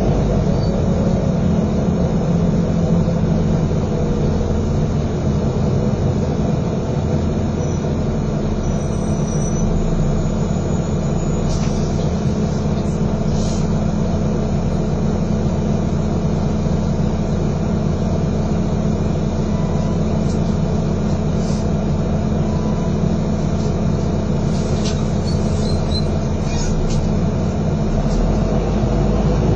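East Yorkshire bus 788 (YX08FWG) heard from inside the saloon while driving: a steady diesel engine drone with road noise. A few light rattles or squeaks come about halfway through and again near the end.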